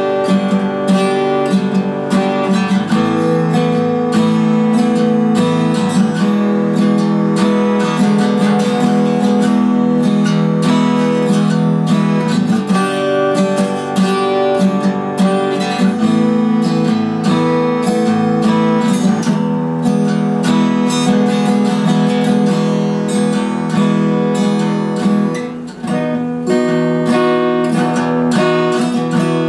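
Cutaway acoustic guitar played solo, picked and strummed chords ringing on, with the chord changing every second or two. The playing briefly drops away near the end, then resumes.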